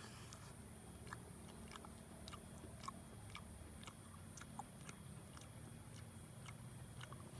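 A person chewing food: soft irregular crunches and mouth clicks over a low steady hum.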